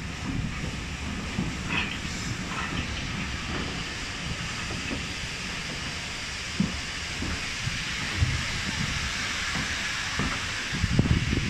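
Steam-hauled passenger train, LNER B12 4-6-0 No. 8572, rolling slowly into a station, heard from a carriage window: a steady steam hiss over the low rumble of the wheels, with a few short knocks.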